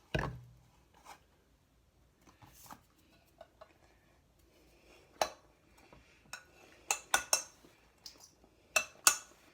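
Scattered clicks and clinks of utensils and containers against mixing bowls, with a dull thump right at the start and a cluster of sharper clinks in the second half.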